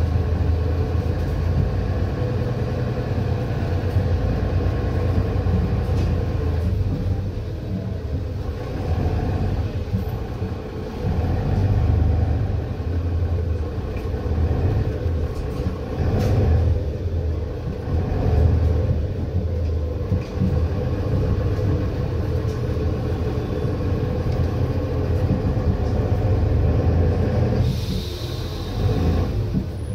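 Interior of a moving Mercedes-Benz Citaro bus with a ZF Ecomat automatic gearbox: the diesel engine and drivetrain running with a steady low rumble of road and body noise, the engine note rising and falling a little. There is a short hiss near the end.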